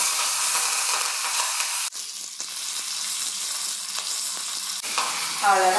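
Hot oil sizzling steadily in a small steel pan as a tempering of mustard seeds, dry red chillies and curry leaves fries. The sizzle drops out briefly about two seconds in.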